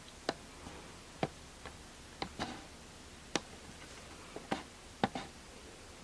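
Light clicks and taps at uneven intervals, about a dozen in all, from fingers handling a camera that will not focus.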